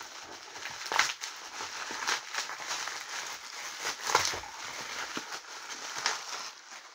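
Plastic bubble wrap crinkling and crackling as it is handled and pulled off a boxed vinyl figure, with louder crackles about a second in, around four seconds and near six seconds.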